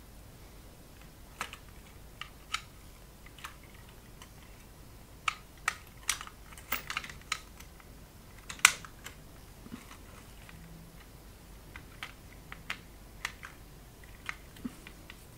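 A screwdriver and small metal parts clicking and tapping irregularly against the timer's metal mechanism plate while screws are worked, with one sharper clack about eight and a half seconds in.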